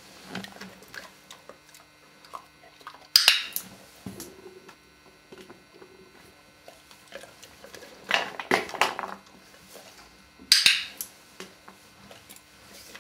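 A drawer rattling and clattering as a dog works at it with paw or muzzle, in three short bouts: one about three seconds in and two in the second half, the first starting with a sharp knock.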